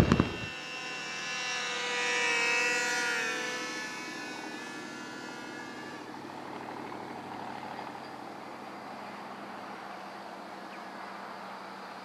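Small model-airplane engine flying past: a pitched drone that swells to a peak about two and a half seconds in and fades out by about six seconds. It opens with the last of a crackling fireworks sound effect.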